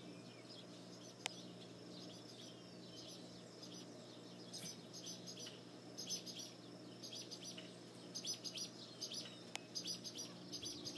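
Small birds chirping faintly in quick clusters of short high notes, growing busier from about four seconds in, over a steady low hum. A single sharp click about a second in.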